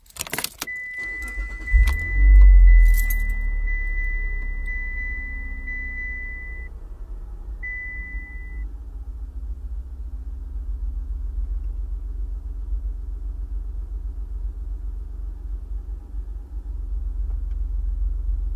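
Car engine started from inside the cabin: keys and ignition clicks, a high warning chime beeping for the first several seconds, the engine cranking and catching with a brief rev about two seconds in, then idling steadily with a low rumble.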